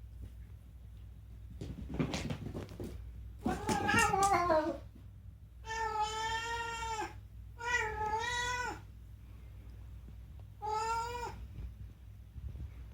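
A domestic cat meowing five times in a row. The second meow falls in pitch, and the later ones are long and held level before dropping off at the end.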